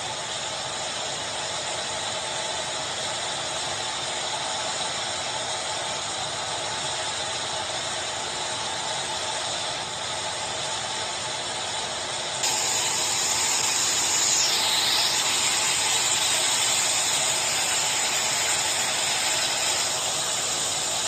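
Muddy floodwater rushing in a fast torrent: a steady rushing noise with no pauses. It gets louder and brighter about twelve seconds in.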